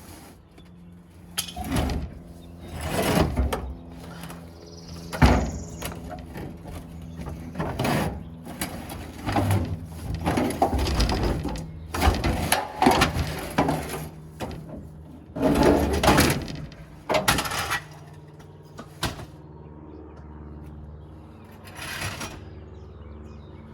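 Clunks, thumps and scraping of an old pickup's bench seat being wrestled loose and pulled out of the cab, in irregular bursts with short pauses, the loudest knock about five seconds in.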